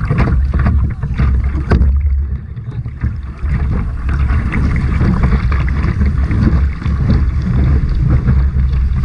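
Wind buffeting a bow-mounted action camera's microphone, with sea water splashing and sloshing around a sit-on-top surf kayak as it is paddled through small waves.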